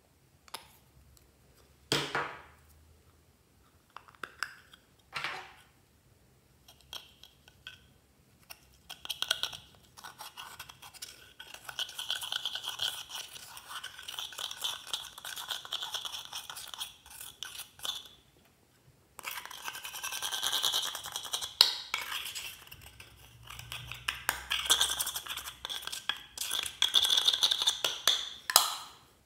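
A thin metal spatula scraping and scratching pressed pink makeup powder out of a small plastic compact, in two long stretches of fast, gritty strokes. Before the scraping there are a few separate sharp clicks and taps.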